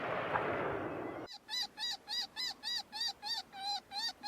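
A hiss cuts off sharply about a second in. Then a repeated high squealing distress call starts, evenly spaced at two to three cries a second, like the prey-distress sound a predator caller plays to draw in coyotes.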